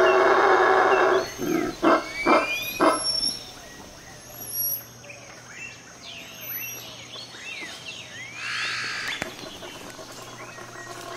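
Howler monkey roaring: a loud, deep, rasping call that breaks into a few short pulses between one and three seconds in. After that the forest goes quieter, with high chirps and a short rising call near the end.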